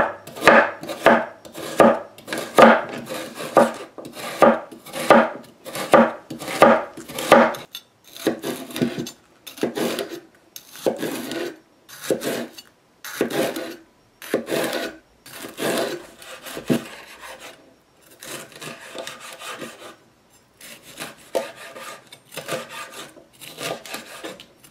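Chef's knife chopping on a bamboo cutting board, first slicing carrots into rounds, then cutting a green bell pepper into pieces. The strokes come steadily at about one and a half a second at first, then turn softer and more uneven.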